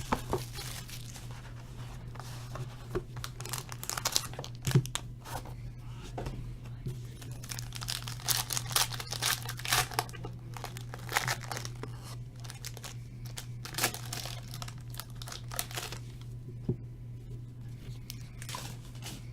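Plastic wrapping on a sealed box of trading cards being torn open and crinkled by hand, in irregular crackling spurts over a steady low hum.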